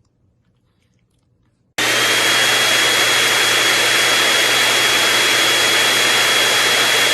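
Loud, steady rushing noise of a motor-driven machine, switched on suddenly about two seconds in, with a steady high whine over a low hum.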